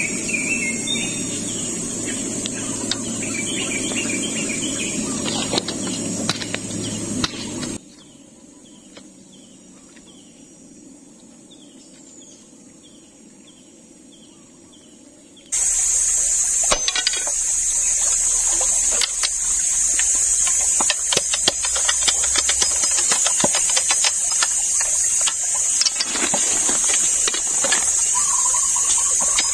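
Riverside ambience: a steady high insect buzz over running water. About a third of the way in it drops to a quieter stretch with faint repeated bird chirps. Then the buzz returns with many sharp clicks and knocks, including a bolo knife striking on a log near the end.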